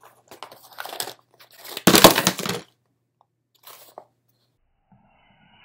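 Plastic packaging crinkling and crackling as it is handled, in short crackles with one loud crunch about two seconds in.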